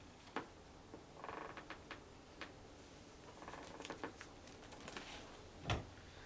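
Faint handling noises: scattered light clicks and taps with two short creaking rubs, and a louder knock near the end.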